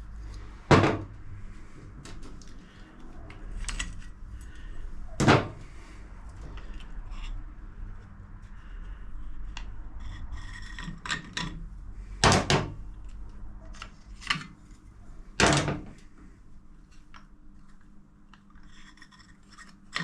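Clutch plates being worked off the clutch hub of a 1942 Harley-Davidson WLA and set down: a handful of sharp metal knocks and clinks spread out over the stretch, with softer rubbing and handling between them.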